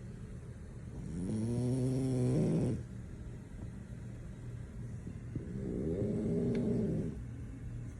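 French bulldog snoring in deep sleep: two long pitched snores about four and a half seconds apart, each rising in pitch as it starts.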